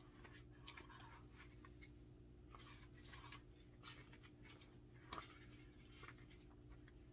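Near silence with faint paper rustles and light taps as a paperback picture book is handled and opened, the most distinct about five seconds in, over a low steady hum.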